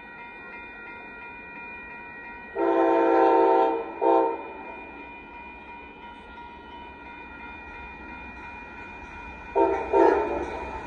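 Locomotive horn of the approaching Amtrak Texas Eagle 22 sounding a chord: one long blast about two and a half seconds in and a short one right after, then two short blasts near the end.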